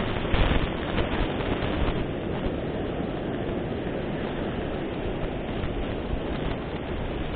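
Surf washing on a beach and wind buffeting the microphone: a steady rushing noise, with a few louder gusts in the first second or two.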